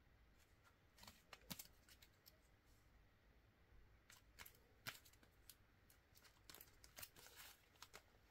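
Faint handling of UNO playing cards: light snaps and rustles in short clusters, about a second in, around four to five seconds in, and near the end.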